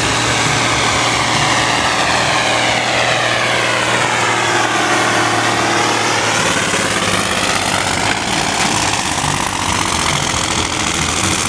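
Ford TW-series tractor's six-cylinder diesel engine running flat out under heavy load as it drags a tractor-pulling sled, loud and steady throughout.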